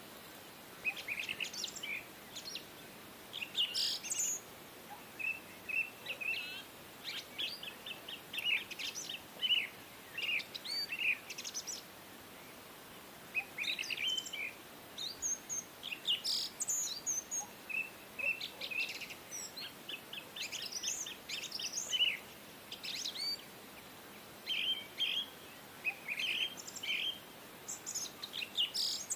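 Small birds chirping and twittering almost continuously: many short chirps and quick trills of repeated notes, over a faint steady background hiss.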